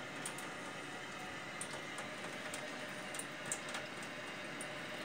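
Thin stream of water from a kitchen faucet running steadily into a stainless steel sink, with scattered faint ticks and splashes.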